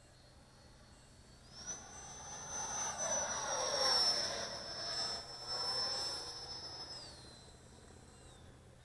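Electric ducted-fan model jet with a 70 mm 11-blade fan on a 2100 kV motor, making a pass overhead. Its high-pitched fan whine steps up in pitch about a second and a half in as throttle is added, then steps back down near seven seconds as it is eased off. A rush of air rises to its loudest mid-pass and fades.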